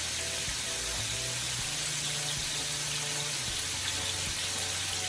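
Chicken and sliced pork belly frying in hot oil: a steady sizzle.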